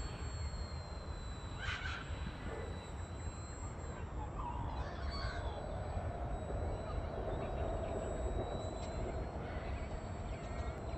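Thin high whine of a small RC airplane's electric motor and propeller flying overhead, its pitch drifting up and down and rising again near the end. Birds call a few times over it, and wind rumbles on the microphone.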